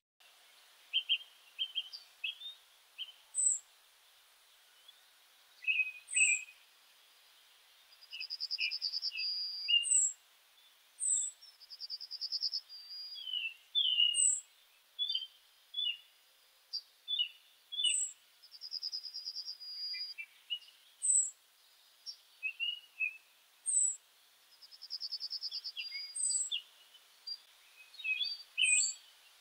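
Several birds singing and chirping: short high chirps and whistled notes, and a rapid trill about a second long that recurs every few seconds.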